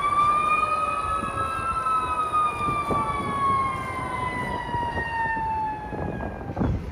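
Fire engine siren wailing: one slow climb in pitch during the first second or two, then a long slow fall that fades out about six seconds in.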